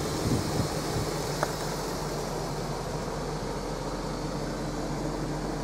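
Jaguar XK8's 4.0-litre V8 idling steadily, with a couple of light clicks in the first second and a half.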